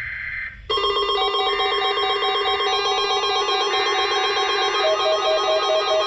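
The tail of an EAS SAME header burst, a two-tone data warble that cuts off under a second in. It is followed by steady layered electronic tones with short repeating notes, like music.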